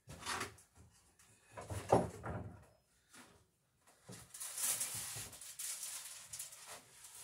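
Wax paper being pulled off its roll and handled, a crackly paper rustle from about four seconds in. Before that come two brief handling sounds, the louder one about two seconds in.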